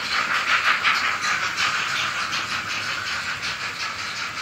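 Model steam locomotive's digital sound decoder playing steam chuffs through its tiny loudspeaker: a thin, hissy, quick, even chuffing that grows slowly quieter.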